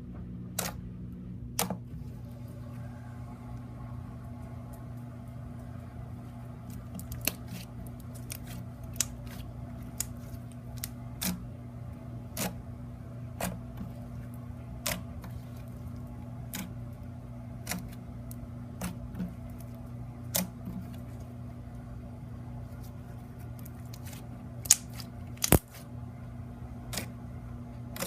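Glitter-glue slime being squished and pressed by hand for ASMR, giving sharp little clicks and pops about once a second, with two louder pops near the end. A steady low hum sits underneath.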